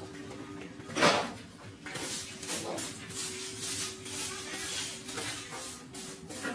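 A knock about a second in, then repeated rustling swishes, as of dry cut grass and brush being handled, over a faint steady hum.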